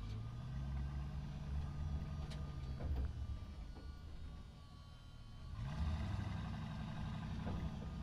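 Heavy semi truck's engine while driving: the engine note sags and quietens about halfway through, then picks up again with a rising pitch about six seconds in.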